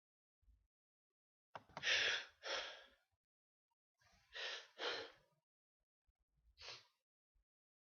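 A person sneezing: breathy bursts come in a pair about two seconds in, another pair around four and a half seconds, and a shorter single one near the end. The first burst is the sharpest and loudest.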